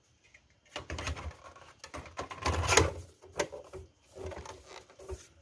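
The thin sheet-metal top cover of a Technics SH-8045 graphic equalizer being fitted back onto the chassis: irregular clanks, knocks and scrapes of metal on metal, loudest a little before the middle.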